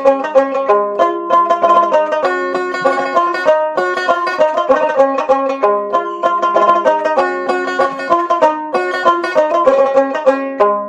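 Background music played on a fast-plucked banjo-like string instrument, a quick run of bright picked notes over a repeating chord pattern.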